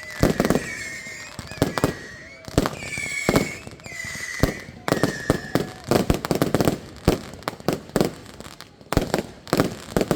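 Fireworks going off: many sharp bangs and crackling pops in quick, uneven succession. High whistling tones rise over them several times in the first half.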